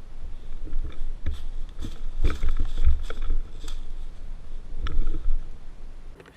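Handling and movement noise on a rifle-mounted camera: low rumble and rustling with irregular knocks and clicks, busiest in the middle and again near the end.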